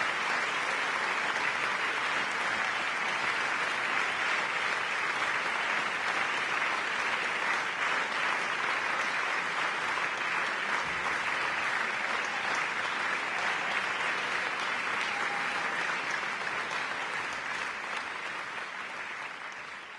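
Audience applauding, a dense steady clapping that thins and fades over the last few seconds.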